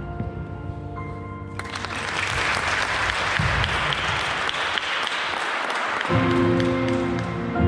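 Music ends and an audience claps for about four seconds; near the end the next piece of music starts.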